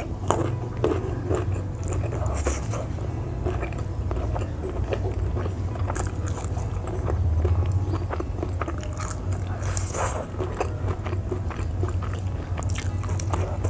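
Close-up biting and chewing of crunchy raw vegetables and jengkol, with irregular wet crunches and crackles throughout.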